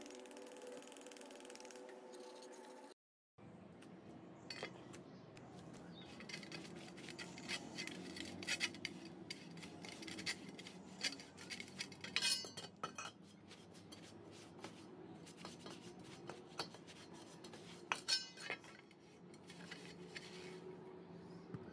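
Dry cloth rubbing over a steel grub hoe blade lying on a concrete floor, with a few sharp metallic clinks as the blade shifts, the loudest about halfway through and again later.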